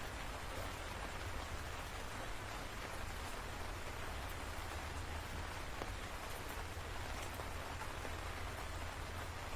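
Steady rain falling: an even hiss with faint, scattered drop ticks, over a low steady rumble.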